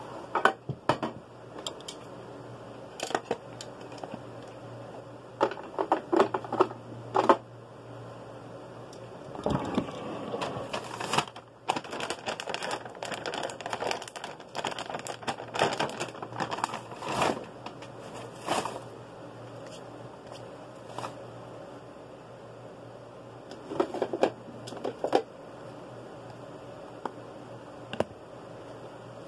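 Plastic dog-treat bag crinkling and rustling as it is handled, in irregular bursts of crackles with pauses between, over a faint steady low hum.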